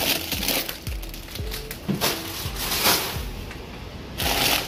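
Background music with a steady beat of deep bass thumps.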